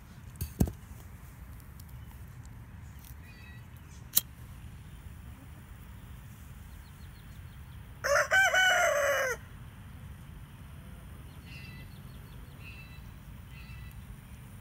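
A rooster crows once, about eight seconds in, a single call of just over a second. Two sharp clicks come earlier, against a low steady outdoor background.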